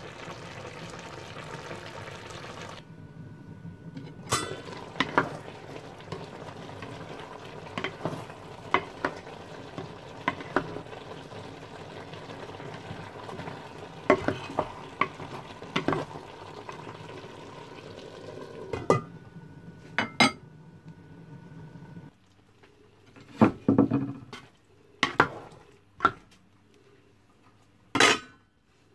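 A stainless steel pan of vegetables simmering with a steady hiss while a spatula stirs and scrapes and the metal lid clinks and knocks against the pan. The hiss stops about 22 seconds in, leaving a few sharper knocks of utensil and lid.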